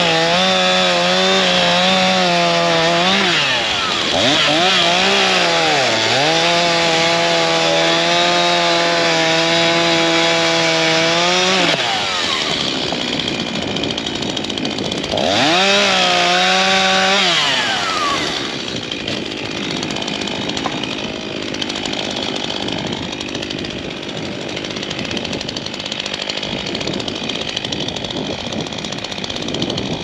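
STIHL MS251 two-stroke chainsaw cutting through a dry dead log at full throttle, its pitch dipping briefly twice as the chain loads up. It eases off about twelve seconds in, revs up for a second short cut, then drops back to a quieter idle for the rest.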